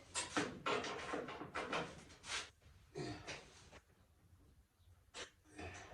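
A quick run of clicks and clatters from tools and small metal parts being handled, then a quieter stretch broken by a couple of knocks near the end.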